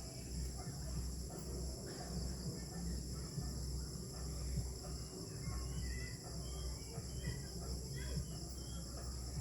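Steady chorus of insects, a continuous shrill buzz high up in several bands. It is joined by scattered faint short chirps in the middle stretch, over a low, uneven rumble.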